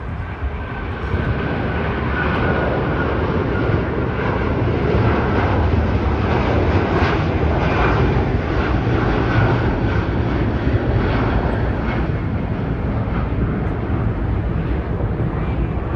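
British Airways Boeing 777's twin jet engines at takeoff power as it climbs out: a loud, steady jet noise with a faint high whine over it, growing a little louder about a second in.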